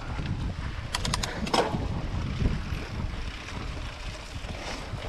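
Hardtail mountain bike riding a trail: steady tyre rumble and wind noise on the microphone, with a quick run of sharp clicks about a second in and another about half a second later.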